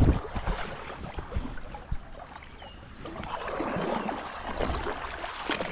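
Shallow river water splashing and sloshing close to the microphone around a landing net held in the current, with wind rumbling on the microphone. A loud bump comes at the very start.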